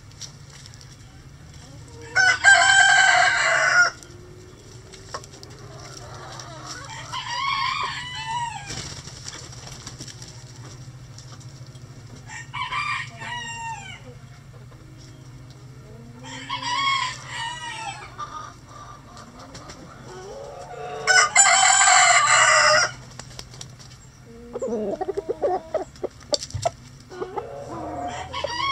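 Bantam roosters crowing: two loud, close crows, one a couple of seconds in and one about twenty-one seconds in, with fainter crows and calls between them. Near the end there is a quick run of clucking.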